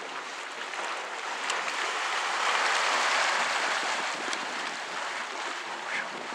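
Dragon's Mouth Spring, a steaming hot spring in a cave, churning and splashing with a steady rush of water, swelling louder in the middle.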